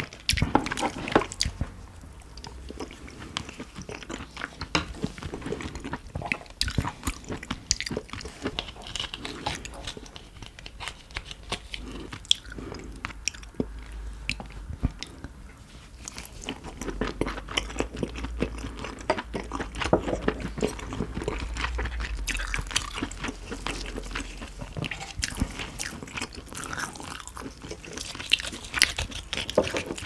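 Close-miked eating of steamed crab: chewing and biting, with many sharp crunches and clicks.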